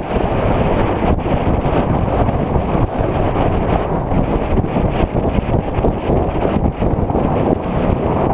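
Heavy wind rushing over a motorcycle-mounted microphone as the motorcycle rides along a cobblestone road, with the engine running underneath and irregular jolts from the cobbles.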